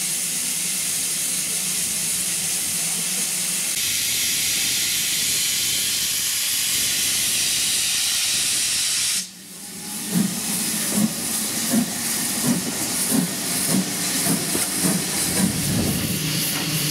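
Steady hiss of steam escaping from a GWR 0-6-2T tank locomotive standing with its train. About nine seconds in the sound breaks off and gives way to steam hissing from a small 0-4-0 saddle tank engine, with uneven pulses.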